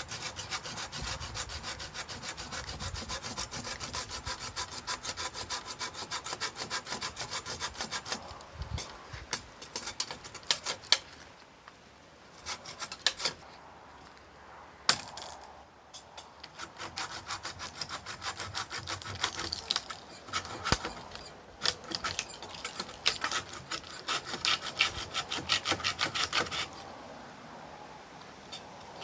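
Hand saw cutting through a log of dead wood with quick, steady back-and-forth strokes, pausing briefly about a third of the way in and again around the middle before the sawing picks up again.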